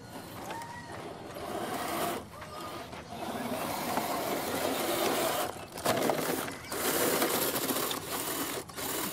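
Electric motor and gear drivetrain of a scale RC rock crawler whirring under throttle as it claws up a loose dirt slope, with its tires scrabbling in the dirt. The whir stops and starts several times.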